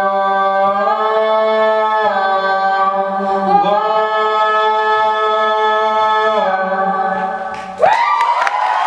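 Two voices singing long held notes in harmony without accompaniment, the closing lines of a song, the pitch stepping every second or two. The singing cuts off near the end and the audience breaks into high whoops and applause.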